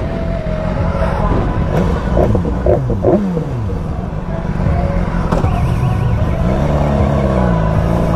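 Motorcycle engine at low speed: the inline-four of a BMW S1000XR rolling slowly, with engine pitch falling away about three seconds in and rising briefly, then easing back, near the end.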